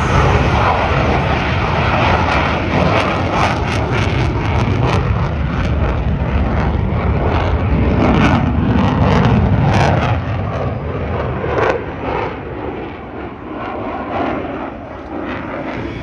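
Fighter jet making a low pass: loud jet engine noise with a deep rumble and a rapid crackle, easing off after about ten seconds as the jet moves away.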